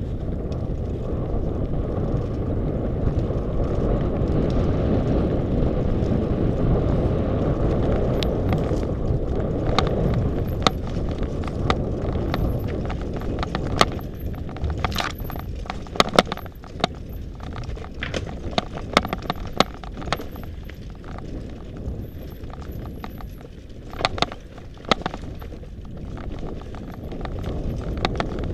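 Mountain bike ridden over a rough, stony forest trail, heard from a camera on the bike or rider: a steady rumble of wind and tyres, then from about eight seconds in many sharp clacks and rattles as the bike jolts over rocks.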